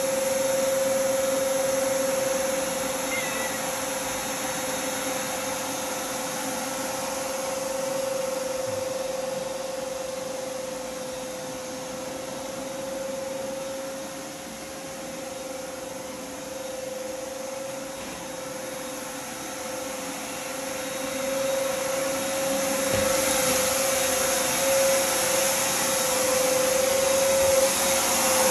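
Shop vacuum running steadily with a constant whine over its rushing air, growing louder near the end.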